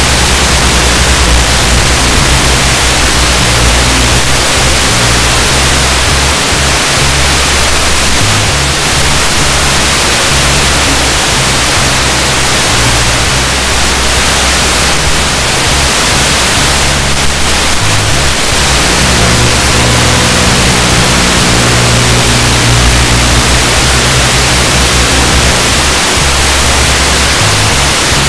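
Loud, steady static hiss of an analog FPV video link's audio channel, with low bass tones underneath that change in steps every second or two.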